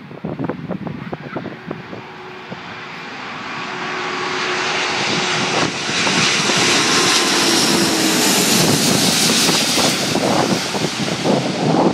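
Airbus A340 four-engine jet airliner on landing approach passing close, its engine noise swelling over several seconds into a loud steady rush with a faint falling whine. Wind gusts buffet the microphone at the start and again near the end.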